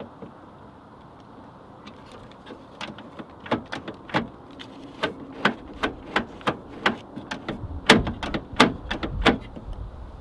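Screwdriver driving the screw that holds the door-handle assembly in place, making a run of sharp, irregular clicks about one to two a second that grow louder near the end, with low handling rumble.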